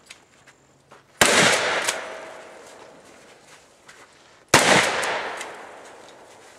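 Two shots from a Mossberg 835 12-gauge pump shotgun, about three seconds apart, each a sharp blast that trails off in a long echo.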